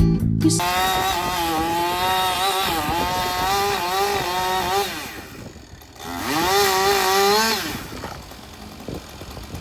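Chainsaw engine running at high revs, its pitch wavering up and down. It dies away about five seconds in, then revs up again briefly and eases off.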